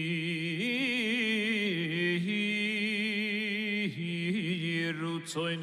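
Background music: a solo male voice singing a slow chant, holding long notes with a wide vibrato and moving between them in ornamented turns.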